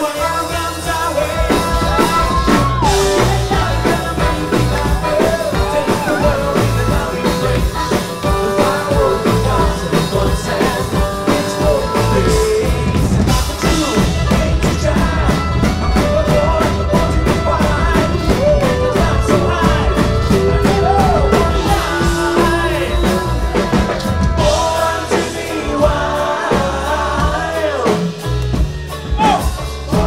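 Live band playing a heavy metal song on bluegrass instruments: a lead singer over banjo, upright double bass and accordion, with a steady, driving beat.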